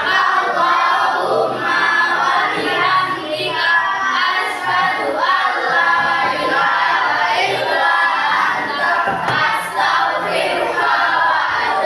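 A class of schoolchildren chanting a prayer aloud together in unison, many voices at once.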